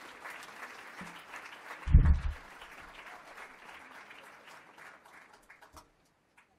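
Audience applauding, thinning out and dying away near the end. A loud, low thump comes about two seconds in.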